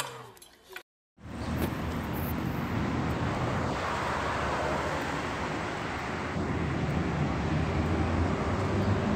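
Steady outdoor rushing noise, starting about a second in after a brief silence, with a faint low hum joining near the end.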